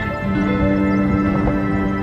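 Background music of long held notes, moving to a new chord shortly after the start.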